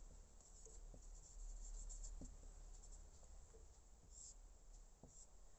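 Marker pen writing on a whiteboard: faint, short scratchy strokes and squeaks as words are written and underlined.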